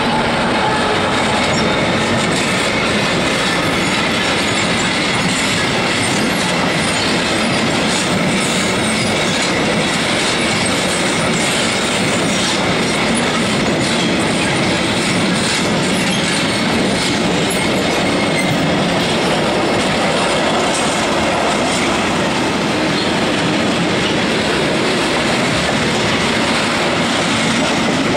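DB class 294 diesel locomotive passing close by, then a long freight train of loaded wagons rolling past steadily, wheels clicking over the rail joints with some high wheel squeal.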